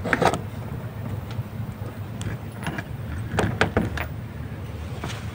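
Light metallic clinks and taps of tools and parts handled at a car's bare front wheel hub, about half a dozen scattered strikes over a low steady hum.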